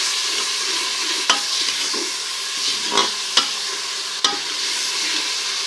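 Onions and garlic-ginger paste sizzling in hot ghee in a cooking pot while being stirred, with about four sharp knocks of the stirring utensil against the pot.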